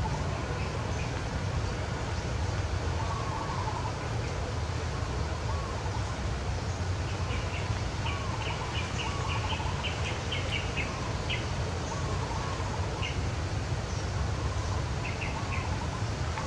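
Birds calling outdoors: a short warbling phrase repeated every couple of seconds, with a run of quick chirps near the middle, over a steady low rumble.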